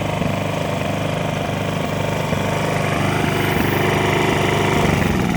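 Ryobi RYi2200 inverter generator's small engine running steadily, a little louder in the last couple of seconds.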